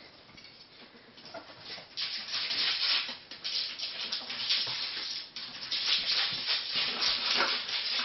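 Ferrets scrabbling about inside a cardboard box, their claws scratching and rubbing on the cardboard in a busy, uneven rustle that grows loud about two seconds in.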